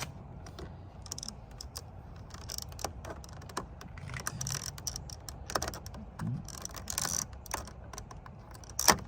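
Irregular light clicks and taps of plastic door-trim parts being handled and worked loose, with one sharper snap near the end.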